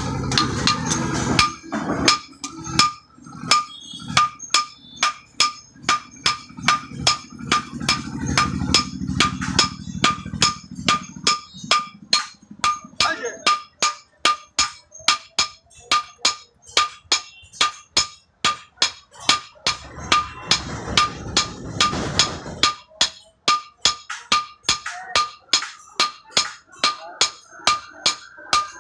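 Hand hammer striking metal on an anvil in a steady rhythm of about two blows a second, each blow with a bright metallic ring: hand forging of iron.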